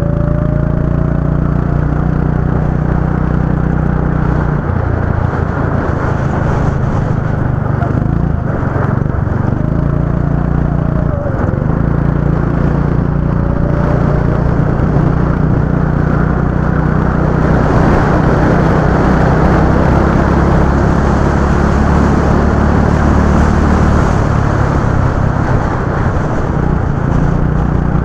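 Go-kart engines running on the track: a steady low engine note that changes a few times, and other karts' engines rising and falling in pitch as they pass.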